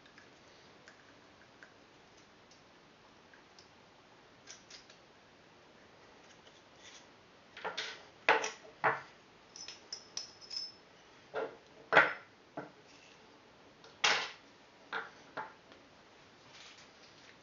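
Metal and plastic parts of an airsoft sniper rifle's bolt and cylinder assembly being pulled apart by hand and set down on a wooden table. A few faint clicks come first, then a run of sharp clicks and knocks in the second half.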